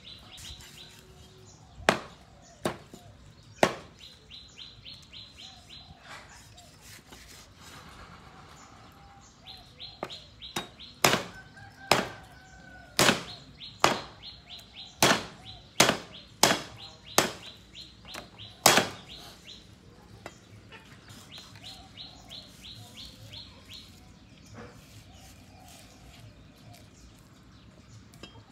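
Knife blade knocking against a thick wooden chopping block as raw meat is cut: three sharp knocks early on, then a quicker run of about ten knocks past the middle. Between and under them, a rapid high chirping comes and goes in bursts.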